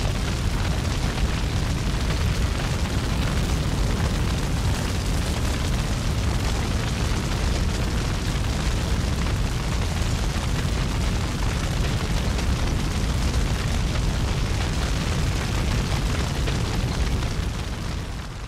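A loud, steady roar with a deep rumble underneath, like a large wildfire burning, fading out over the last second or two.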